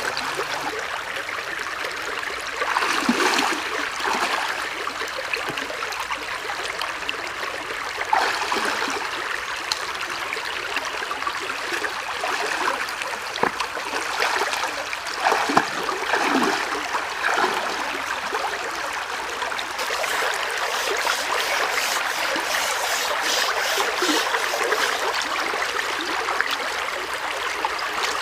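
Shallow stream running over rocks, a steady rushing and trickling, with a few louder splashes as someone wades and works their hands in the water.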